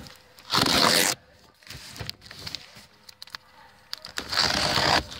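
Packing tape being ripped off a cardboard shipping case: two loud rips, one about a second in and one near the end, with small scrapes and rustling of cardboard between.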